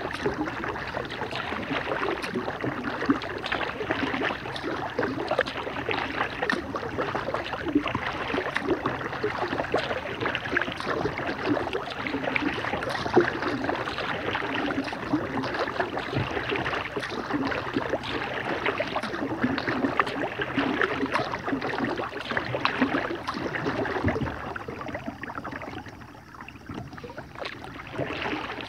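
Water splashing and trickling against the plastic hull of a Lifetime kayak as it is paddled along a calm river, a dense crackling wash of water close to the microphone. The sound eases off for a couple of seconds near the end.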